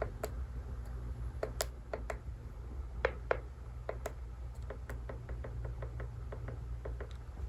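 Irregular clicks of the buttons on an ARRI L5-C LED Fresnel's control panel, pressed one after another to step through its DMX program modes, over a steady low hum.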